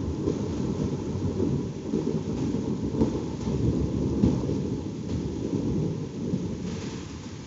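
Rolling thunder rumbling low and slowly fading, with a steady hiss of rain.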